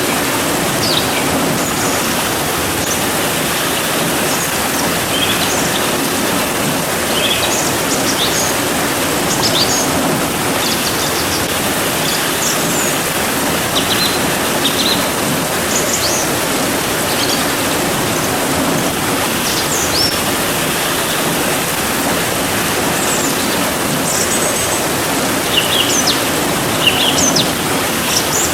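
Steady rain hiss with small birds chirping over it, short high calls coming and going throughout.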